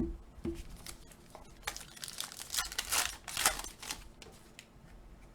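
Foil wrapper of a 2021 Panini Illusions football card pack being crinkled and torn open, a cluster of crackles from about two to four seconds in.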